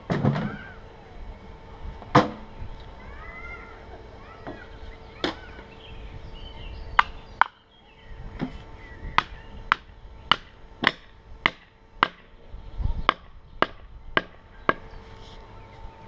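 Repeated axe blows on wood, a series of sharp strikes that start out spaced a few seconds apart and then come about twice a second through the second half. Birds chirp faintly in the first few seconds.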